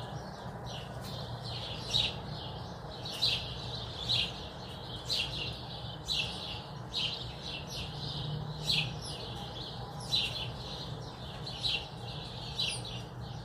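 Small songbirds, sparrows and tits, chirping and calling to each other in a spring morning chorus: a steady stream of short, high chirps from several birds. Under them runs a steady low hum.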